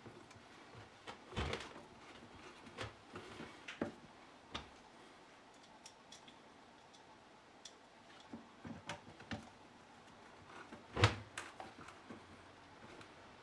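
Scattered light clicks and knocks of the concrete vibrator's parts and hand tools being handled during repair, with one sharper knock about eleven seconds in.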